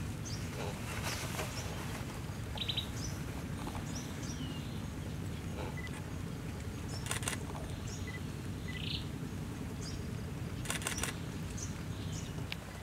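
Forest ambience: scattered short bird chirps and calls over a steady low rumble, with a few brief crackling bursts about a second, seven seconds and eleven seconds in.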